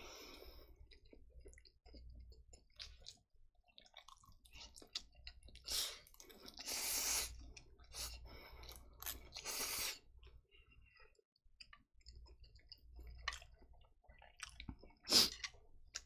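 Close-miked chewing of Chapagetti black-bean sauce noodles with melted mozzarella, full of small wet mouth clicks, with several louder slurps in the middle and one more near the end.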